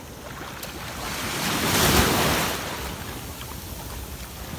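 Small sea waves breaking and washing up the shallows of a sandy beach, the surf swelling to its loudest about two seconds in and then easing, with wind buffeting the microphone.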